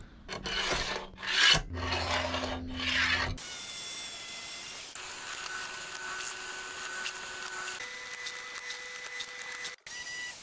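Drill press boring through a steel plate, a steady whirring with a faint high whine for several seconds. Before it come about four rough rasping strokes.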